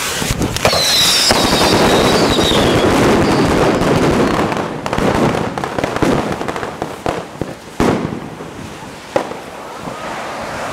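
A heap of assorted firecrackers and crackling ground fireworks going off together. At first there is a dense run of rapid crackling and popping with a high wavering whistle through it. After a few seconds it thins to scattered crackles and a handful of single sharp bangs.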